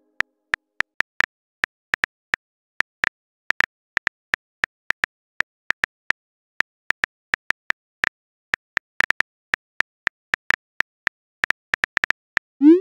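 Phone on-screen keyboard typing clicks, short and sharp at an uneven rate of several a second, as a text message is typed. Near the end a short rising swoosh marks the message being sent.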